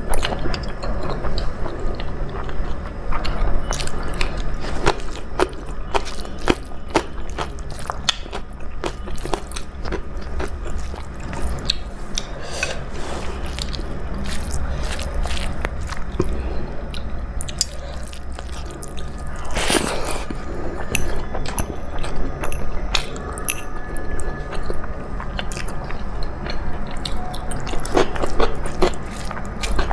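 Close-up mouth sounds of a person eating a meal of rice, dal and vegetable curries: chewing and biting with many small wet clicks and smacks, a louder one about twenty seconds in.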